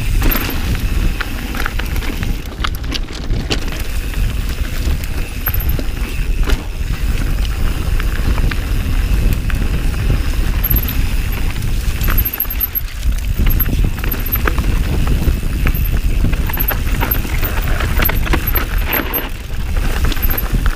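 Mountain bike riding down a rough enduro trail: tyres running over dirt and rocks under a steady low rumble, with many quick knocks and rattles from the bike.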